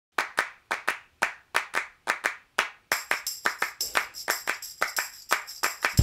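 Rhythmic hand claps in a steady repeating pattern opening a music track. About halfway a bright, high jingling layer joins in and the claps come faster.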